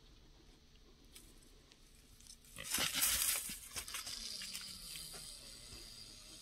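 A burst of loud rustling and crackling about two and a half seconds in, lasting about a second and a half, then tailing off.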